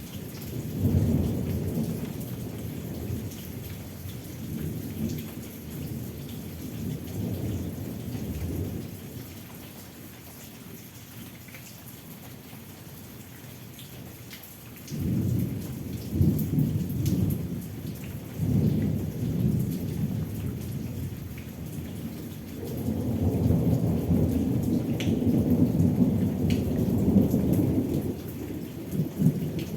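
Steady rain with rolling thunder. The thunder rumbles and fades over the first several seconds, breaks in suddenly about halfway, and swells into a long rumble near the end.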